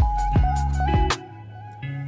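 Background music with a steady beat and plucked notes.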